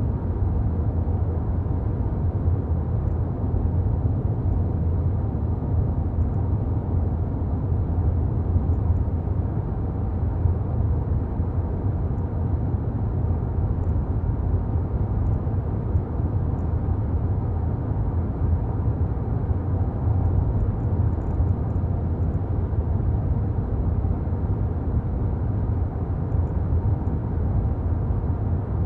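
Steady low rumble of a car driving, engine and tyre-on-road noise heard from inside the cabin.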